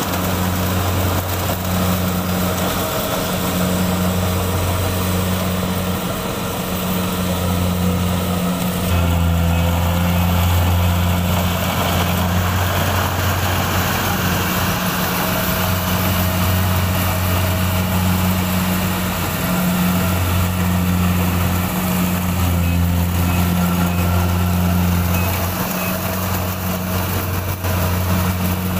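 Kubota DC-70 rice combine harvester's diesel engine running steadily while harvesting, a constant low hum with the machinery's noise over it; the note shifts slightly about nine seconds in.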